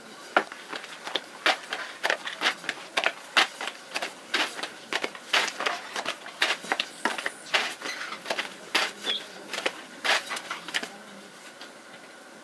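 Long thin wooden rolling pin tapping and knocking against a round floured board as thin flatbread dough is rolled out and flipped over the pin: quick irregular clicks, several a second, that stop near the end.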